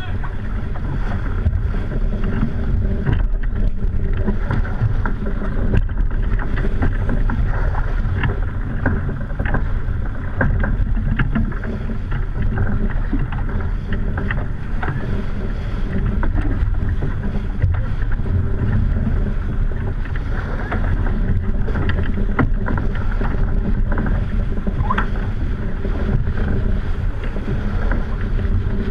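Racing sailboat under way in strong wind: wind rumbling steadily on the camera microphone over water rushing past the hull, with scattered clicks and knocks.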